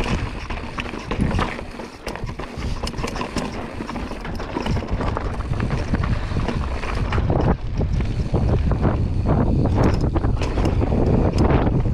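Wind rushing over the microphone while a mountain bike rolls fast down rocky dirt singletrack, its tyres crunching and the bike rattling and clicking over stones. The wind rumble gets louder about halfway through.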